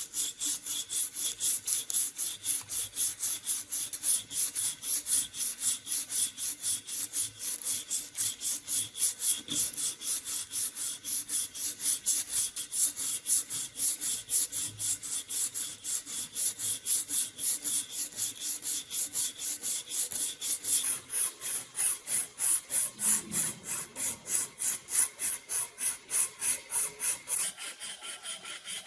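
Steady, rapid back-and-forth abrasive strokes by hand, a scraping rasp at about three strokes a second, as in filing, sanding or sharpening during a knife restoration.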